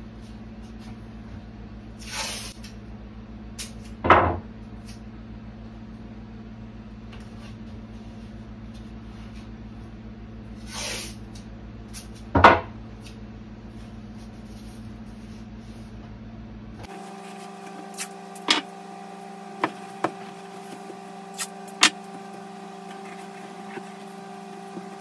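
Masking tape pulled off the roll with a short rasp and then torn off with a sharper, louder rip, twice, over a steady low hum. Later come a few light clicks and taps.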